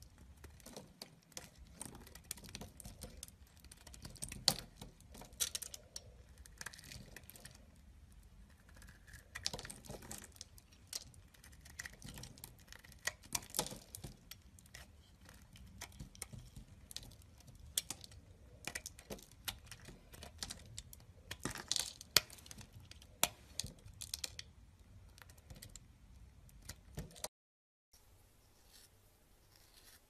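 Craft knife carving a bar of soap: quick, irregular crisp crackling and scraping cuts as flakes and curls come off. The carving sounds stop abruptly near the end.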